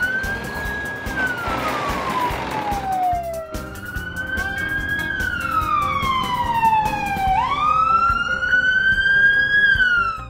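Ambulance siren wailing, its pitch sweeping up, holding, then sliding slowly down, about three times over, with background music underneath.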